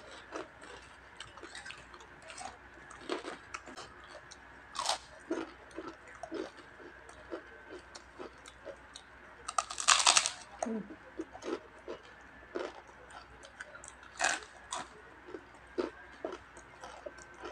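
Close-up crunching and chewing of deep-fried crispy chicken skin: irregular sharp crackles as it is bitten and chewed, with one loud, long crunch about ten seconds in.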